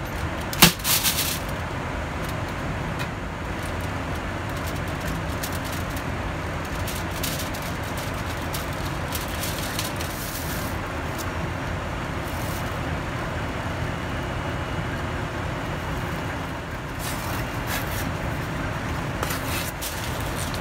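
Steady cabin noise of an airliner in flight, heard in the galley. Foil and plastic packaging crinkle now and then as it is handled, with a sharp knock about half a second in.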